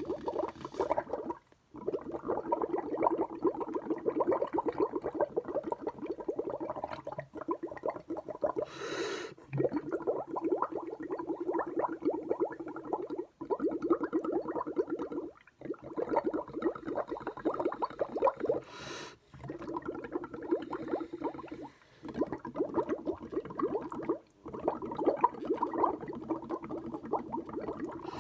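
Air blown through a drinking straw into a glass of milk, a fast continuous bubbling gurgle. It breaks off briefly every few seconds for a breath, with two short hissing sounds about a third and two-thirds of the way through.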